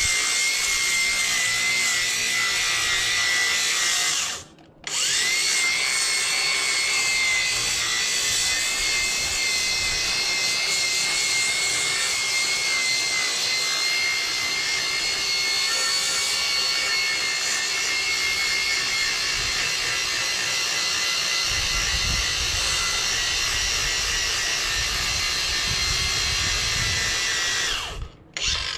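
Ryobi cordless angle grinder running against steel, cleaning off rust and paint, with a steady high whine. It stops briefly about four seconds in, spins back up, and runs on until just before the end.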